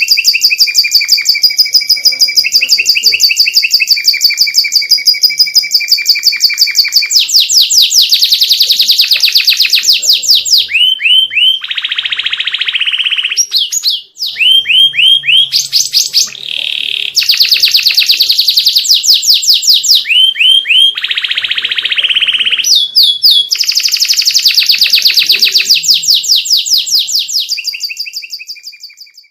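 Domestic canary singing a long song of rapid trills, switching to a new rolling phrase every few seconds, with a brief break about 14 seconds in. The song fades out near the end.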